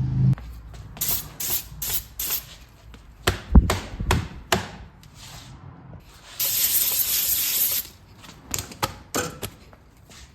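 An aerosol cleaner sprayed in one steady hiss of about a second and a half, starting about six seconds in, used to clean the mating surfaces of the differential parts. Scattered clicks and knocks from the metal parts being handled and wiped come before and after it, and a low hum cuts off just after the start.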